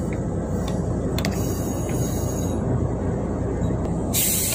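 Taiwan Railway Pingxi Line train running, heard from inside at the rear: a steady low rumble with a few light clicks, then a sudden sharp hiss near the end.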